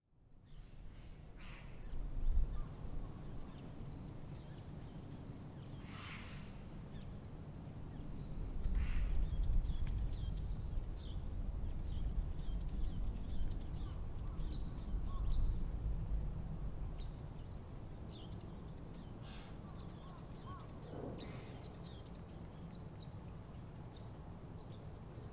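Outdoor ambience: a low wind rumble that swells in gusts, strongest from about 8 to 16 seconds in. Scattered bird calls sound over it, among them a few crow caws and brief high chirps.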